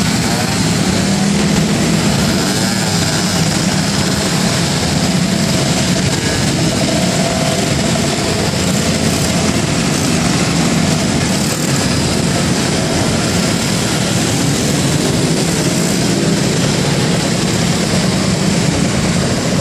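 Many motor scooters running together as a group pulls away, making a dense, steady drone of small engines, with pitches rising and falling as individual scooters accelerate off.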